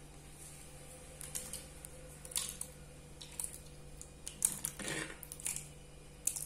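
Scattered soft clicks and scrapes of a clay pot, a steel ladle and a ceramic bowl as thick mashed greens are tipped and scraped from the pot into the bowl.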